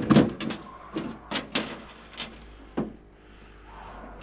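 A run of sharp knocks and clatters, about seven, irregularly spaced, from fishing gear and a fish being handled against the hard surfaces of a small boat.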